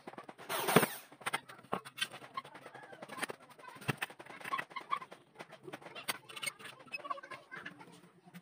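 A corded electric drill runs in one short burst about half a second in, drilling into an aluminum window profile. Light clicks and rattles follow as the drill chuck is turned by hand and the aluminum pieces are handled, with birds calling in the background.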